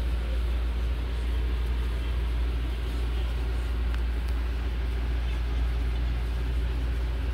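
A steady low mechanical drone, like a motor running, with a faint click about four seconds in.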